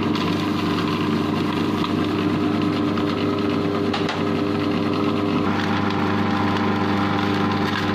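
Electric food processor motor running steadily, its blade whipping instant coffee and water into a froth. The tone of the hum shifts slightly about five and a half seconds in.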